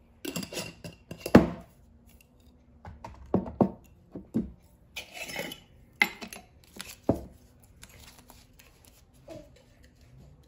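Glass mason jars handled and set down on a hard desktop: a series of knocks and clinks of glass, the loudest about a second and a half in, with a stretch of rustling about halfway through.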